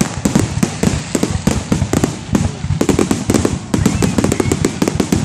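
Fireworks going off in a dense, rapid barrage: many sharp bangs and crackles a second, with no pause.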